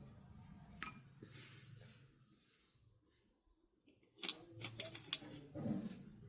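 Slate pencil being bitten and chewed up close: crunches, one about a second in and a quick run of several between four and five seconds in, over a steady hiss.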